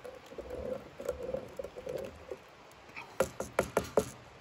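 Metal spoon stirring and scraping the bottom of a stainless billy can of browned beef in Guinness, working the stuck-on meat residue loose. A quick run of sharp clicks comes about three seconds in.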